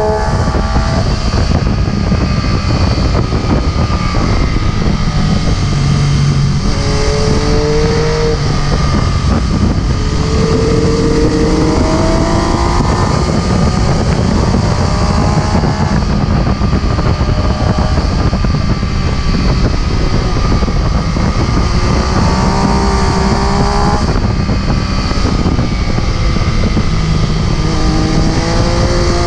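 MV Agusta F3 675's inline three-cylinder engine under way at speed, its pitch rising in several short runs as it accelerates, with heavy wind rush on the microphone.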